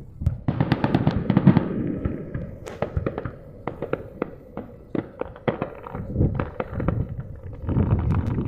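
Fireworks going off: a dense run of crackling pops from about half a second to two seconds in, then scattered sharp cracks over low booms.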